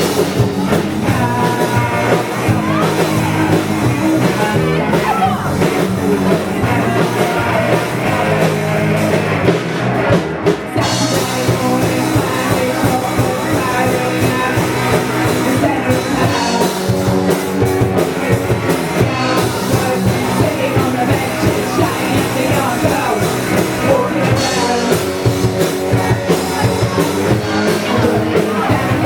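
Live rock band playing a punk-rock song, with drum kit, guitar and a singing voice.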